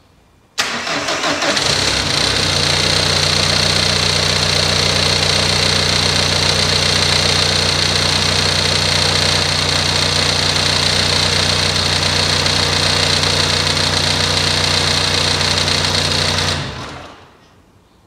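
Ford Transit Connect 1.8 TDCi diesel engine cranking briefly and catching, then idling steadily with a steady high-pitched whine over it, and stopping near the end. It starts and runs now that a replacement PCM is programmed in: the crank no-start was caused by the old engine ECU failing to translate the engine speed signal.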